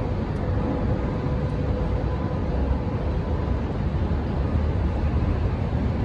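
Steady low rumble of ship and port cargo-handling machinery, with a faint hum running through it.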